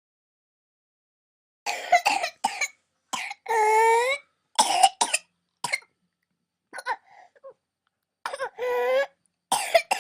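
A young child's whooping cough (pertussis) paroxysm, beginning about two seconds in. Runs of short, rapid coughs are broken twice by a long, high-pitched indrawn whoop.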